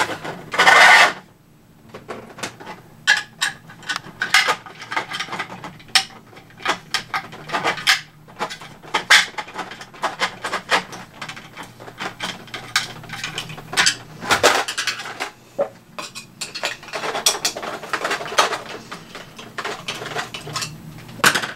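Hard plastic toy-blaster parts being handled and fitted together: a loud scrape near the start, then many irregular clicks, knocks and clatters of 3D-printed plastic pieces.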